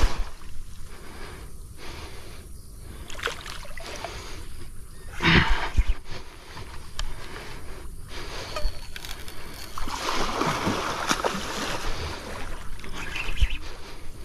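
Water of a flooded river rushing and splashing, broken by irregular knocks and rustles, with a loud burst of noise about five seconds in.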